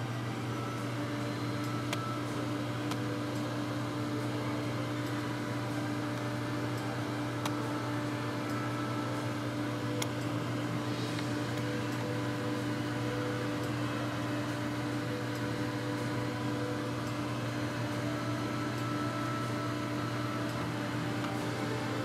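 Vacuum cleaner running steadily: a constant low motor hum with an airy hiss of suction, heard close to the nozzle.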